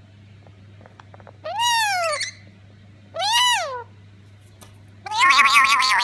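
Black-capped lorikeet giving three meow-like calls in imitation of a cat, each rising and then falling in pitch; the third, near the end, is longer and rougher.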